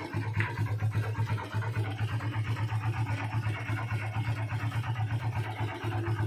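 Yamaha LC135's single-cylinder four-stroke engine idling steadily with a rhythmic knock, a fault the owner reckons will be expensive to fix.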